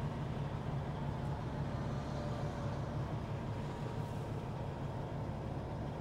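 Caterpillar 6NZ inline-six diesel of a Peterbilt 389 semi truck running steadily under way, a low even drone heard from inside the cab.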